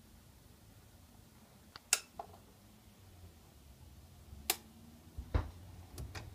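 Technics SL-B3 turntable with a record spinning: faint low hum with a few scattered sharp clicks and a single low thump about five seconds in, the pops and thump of the stylus on the record's outer edge.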